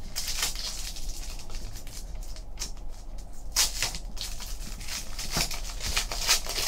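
Foil wrapper of a trading-card pack crinkling and tearing as it is pulled open by hand, in a series of short rustling bursts, the loudest about three and a half seconds in and again near the end.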